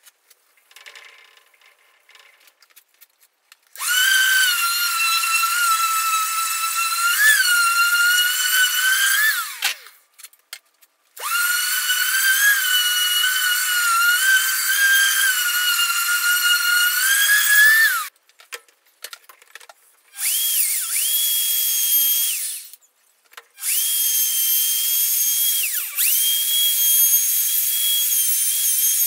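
Electric orbital sander sanding a wooden guitar body, run in two spells of about six seconds each with a whine, spinning up and down at each start and stop. After a short gap a router runs at a higher, steadier pitch, stops briefly, then runs on.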